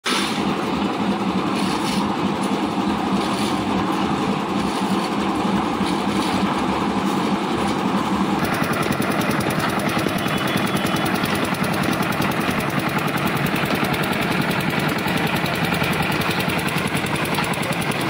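Lift-type concrete mixer machine running: a steady, loud engine noise with a rapid, even beat, changing in tone about eight seconds in.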